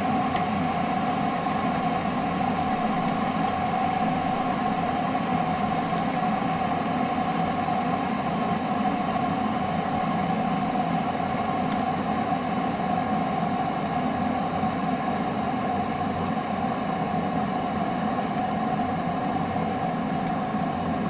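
Kettle heating water: a steady rushing noise with a constant hum.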